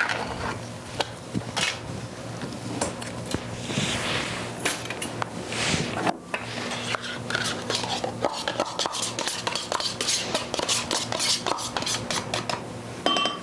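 A spoon scraping and tapping yogurt out of a cup into a bowl, with the clatter of dishes on a countertop: many short clicks and knocks, coming thick and fast in the last few seconds, over a low steady hum.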